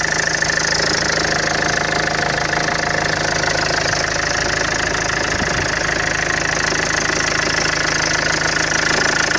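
Engine idling steadily, with the vibration and extraneous noise at idle that its owner is trying to track down.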